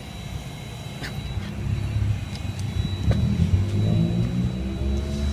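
A vehicle engine rumbling and rising in pitch from about two seconds in, as a car or truck accelerates nearby, with a few light clicks.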